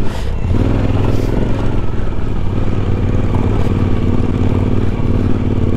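Suzuki V-Strom 1050XT's V-twin engine running steadily at low speed as the motorcycle climbs a gravel dirt road.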